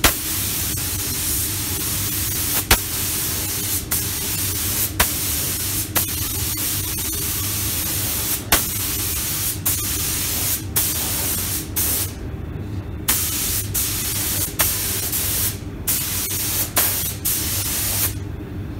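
SATA 5000 RP reduced-pressure spray gun with a 1.2 mm tip hissing steadily as it sprays clear coat, with a sharp click about once a second. The hiss breaks off briefly a few times near the end as the trigger is let go between passes. A steady low hum runs underneath.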